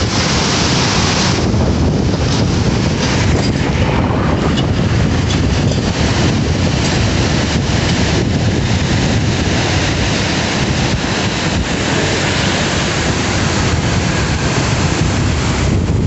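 Heavy floodwater rushing through the openings beneath a concrete bridge and churning into turbulent whitewater: a loud, steady rush of water.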